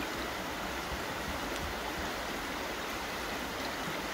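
Shallow creek water running over a stony riffle: a steady, even rush.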